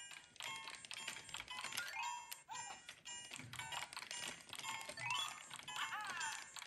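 LEGO Super Mario interactive figure in its Frog suit playing electronic game sound effects from its built-in speaker: quick beeps and chiming blips, with rising and falling whooping sweeps about five to six seconds in. Soft knocks of the plastic figure being set down on the bricks come in between.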